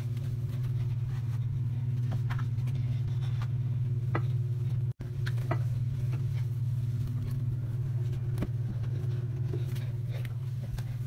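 Steady low hum, with a few faint clicks and light rubbing over it. The hum breaks off for an instant about five seconds in.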